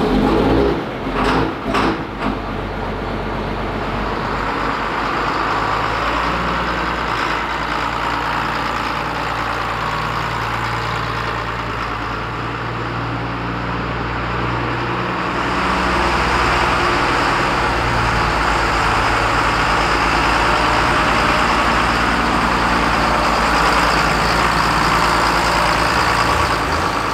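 John Deere 4755 tractor's six-cylinder diesel engine running steadily, with a few loud knocks in the first two seconds; the engine gets somewhat louder about halfway through.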